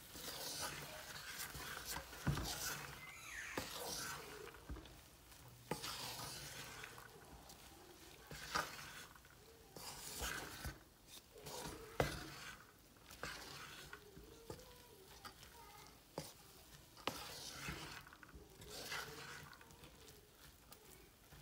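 Wooden spatula stirring and tossing fried rice in a large aluminium pot, with irregular scraping strokes and a few sharper knocks of the spatula against the pot.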